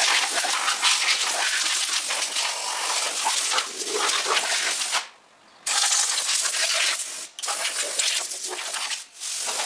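Compressed air hissing from a blow gun, clearing metal swarf off the lathe. It is a steady rush that cuts off sharply for about half a second around the middle and breaks briefly twice more near the end.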